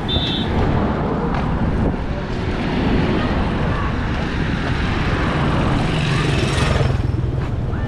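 Loud, steady street traffic noise as a motor vehicle passes close by, building towards a peak near the end with a low engine hum. A short horn toot sounds right at the start.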